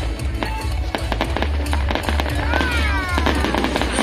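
Fireworks display going off in quick succession: a dense run of bangs and crackles from bursting aerial shells, heard over music.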